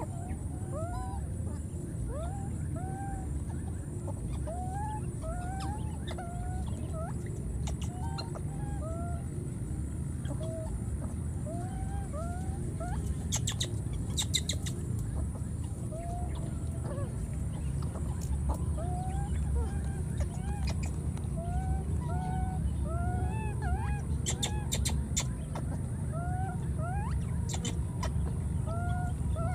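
Baby macaque crying: a long run of short, high coo calls, each rising then falling, at about one or two a second over a steady low rumble.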